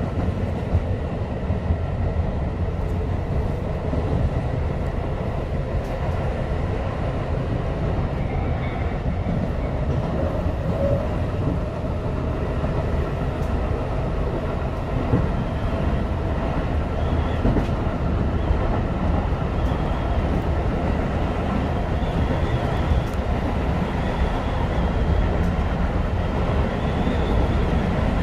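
Tobu 10030 series electric train running at speed between stations, a steady noise of wheels on rails and running gear, heard from inside the front car.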